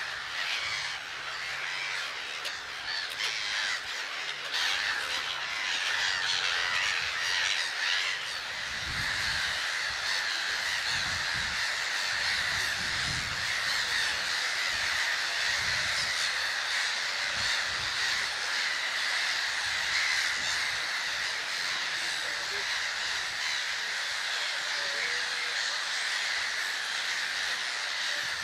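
A large colony of grey-headed gulls calling all at once: a dense, unbroken din of squawking calls.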